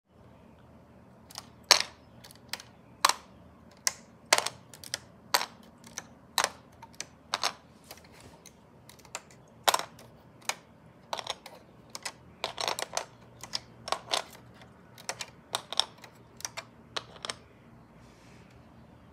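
Plastic Lego bricks being handled, giving sharp irregular clicks about one or two a second. The clicks stop near the end.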